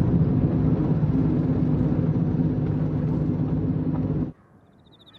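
A vehicle engine running with a steady low drone, which cuts off abruptly about four seconds in.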